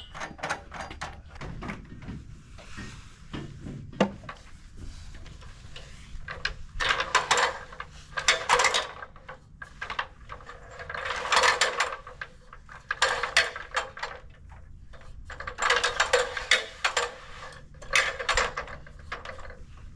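Rapid ratcheting clicks of a hand-worked mechanism, coming in five bursts of a second or two each from about a third of the way in, with short pauses between.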